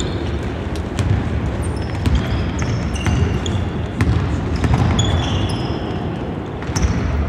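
Basketball bouncing on a hardwood court during dribbling, with repeated sharp knocks and short high squeaks of sneakers on the floor.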